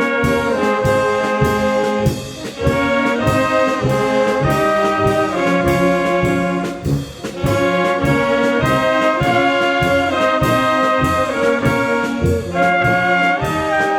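Brass band playing a Bohemian polka: brass melody over a steady oom-pah beat of short bass notes, with brief breaks between phrases about two and seven seconds in.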